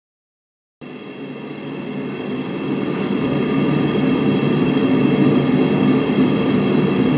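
Blacksmith's forge running with a steady, dense noise, heating the steel. It starts abruptly after a second of silence and swells gradually to a constant level.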